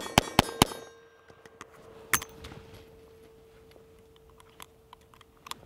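Korth Mongoose double-action revolver fired in rapid succession, the last shots of a six-round string coming about five a second and ending within the first second. The cylinder is then opened and the empties ejected with a sharp metallic clack about two seconds in, followed by light metallic clicks and clinks of cartridges being handled and loaded.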